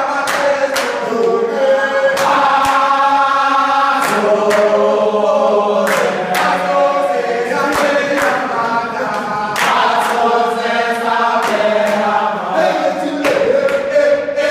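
A group of voices singing a chant together, with long held notes that change pitch every second or so. Sharp percussive hits fall at irregular intervals through the singing.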